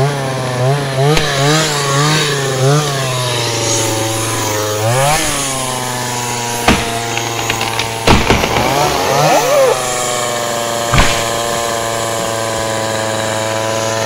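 Chainsaw engine running: revved up and down several times in the first few seconds, then held at a steady speed. About eight seconds in, a series of cracks and thuds as the felled tree comes down, with another thud a couple of seconds later.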